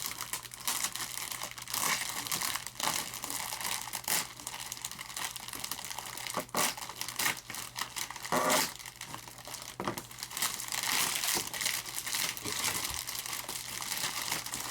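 Plastic packaging crinkling and rustling, with frequent sharp crackles, as a packed model airplane wing is unwrapped.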